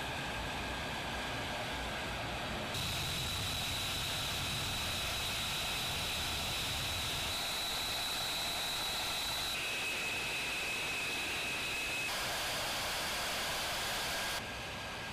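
Jet turbine running on the ramp: a steady rushing hiss with a high whistling whine on top. The whine jumps abruptly in pitch several times.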